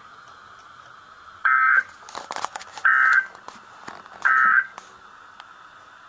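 Three short bursts of warbling digital data tones, about 1.4 s apart, over a steady radio hiss: the EAS/SAME end-of-message code that closes a NOAA Weather Radio alert broadcast. A few crackling clicks of static come between the first and second bursts.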